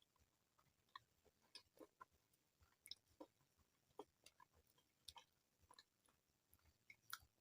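Faint, close-miked chewing: soft, irregular wet clicks and mouth smacks, several a second.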